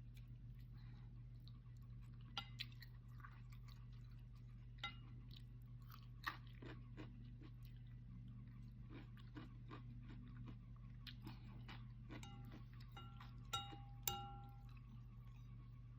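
Faint chewing and mouth clicks while eating noodles, with a few sharper clicks. Near the end come two louder ringing clinks, a utensil knocking against the bowl, over a steady low hum.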